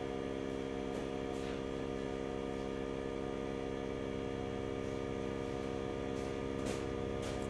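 Steady electrical mains hum with a low buzz, and a few faint light clicks.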